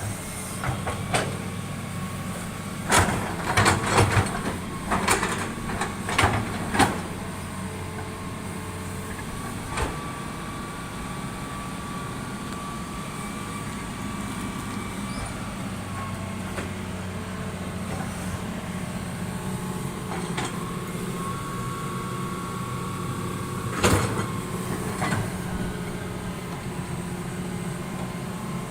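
Diesel engine of heavy tracked construction machinery running steadily. A faint higher whine comes and goes, and there are sharp clanks: a quick series a few seconds in and another near the end.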